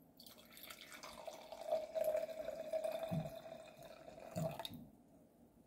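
Red wine pouring from a bottle into a stemmed glass, a steady splashing stream that fills the glass. Two low pulses come in the second half, and the pour stops about a second before the end.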